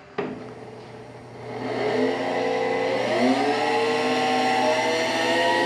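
Click of the JET 16-32 drum sander's conveyor switch, then the conveyor motor starts with a whine. The whine rises in pitch in two steps as the speed dial is turned up, then runs steady.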